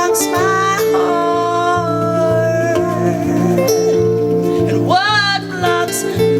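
Live improvised band music: guitars and bass holding sustained notes, with a melody line that slides up in pitch about five seconds in.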